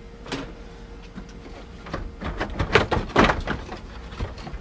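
Knocks and plastic rattles from a Ford F-150's dashboard being handled and worked loose, with one knock shortly in and a clatter of knocks about two to three and a half seconds in. A faint steady hum runs underneath.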